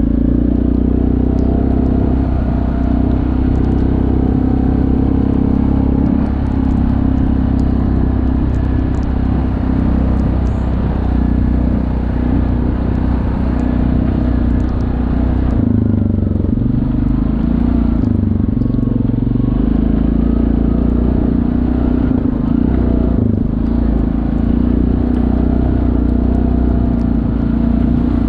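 ATV engine running steadily while riding on a muddy trail. About halfway through, the engine note drops lower for a few seconds, then settles back to its steady drone.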